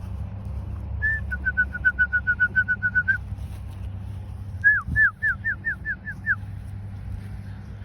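A quick run of short whistled notes at one pitch, then a slower series of downward-sliding whistled notes, over a steady low rumble.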